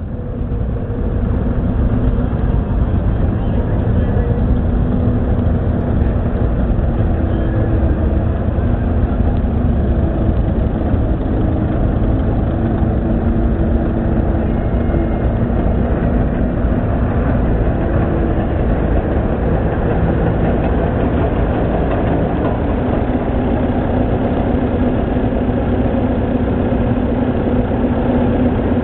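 Vintage tractor engines running at low speed, a steady low rumble with engine tones that change a few times as different tractors pass, including a Caterpillar crawler.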